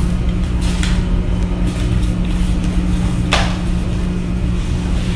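A steady low hum, with a few short rustles of paper as documents are signed and turned over; the loudest rustle comes about three seconds in.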